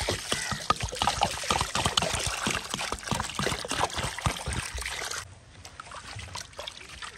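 Water poured in a stream into an aluminium basin of raw chicken pieces, splashing as the chicken is washed. About five seconds in the pour stops, leaving softer sloshing as hands rub the pieces in the water.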